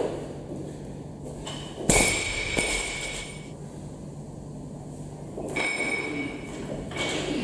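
A loaded steel barbell with bumper plates hits the floor about two seconds in: a heavy thud, then the bar and plates ring for over a second. Around five and a half seconds in comes a lighter clank with more ringing as the bar is pulled up and caught in a clean.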